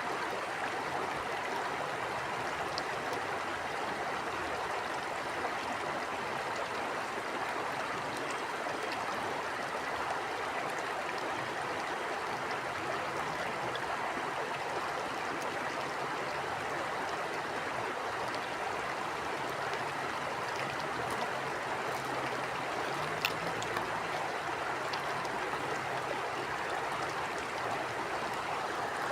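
Stream water flowing steadily over rocks, an even rushing babble with no change in level.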